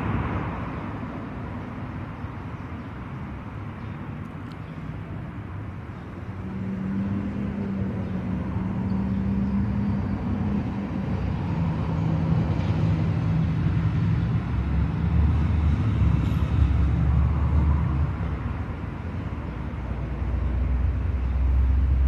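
Motor vehicle engine running: a steady low hum that grows louder and deeper in the second half.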